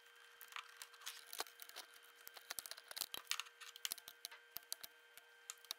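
Faint, irregular clicks and light rattles of small metal and plastic parts being handled as a steel cable and rod are threaded into the plastic piston of a Tolomatic air cylinder during a rebuild.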